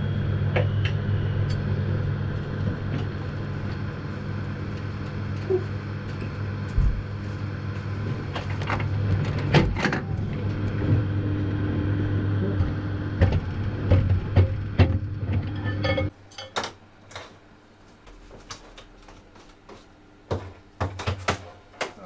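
Microwave oven running with a steady hum while a butane lighter burns inside it, with sharp pops and crackles. The hum cuts off about two-thirds of the way through, leaving scattered clicks and knocks.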